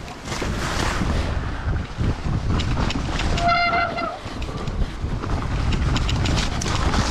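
Wind buffeting the microphone over the rumble of an electric mountain bike riding a snowy trail, with many small clicks and rattles from the bike and trail. A short beep-like tone with overtones sounds once, about three and a half seconds in.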